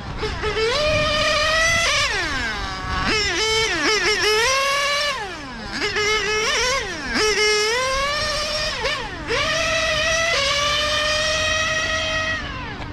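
Nitro engine of a 1/8-scale GT RC car (Senesi Motorsport engine) revving hard and high-pitched. Its pitch climbs on the straights and drops sharply off the throttle about five times, then holds high for a couple of seconds before falling near the end.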